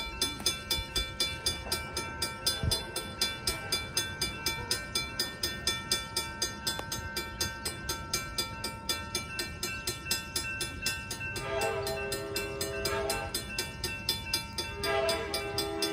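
Railroad crossing signal bell dinging in a steady, even rhythm. Two thirds of the way in, the approaching Amtrak Pacific Surfliner's locomotive sounds its horn: one blast of about a second and a half, then a second blast starting near the end.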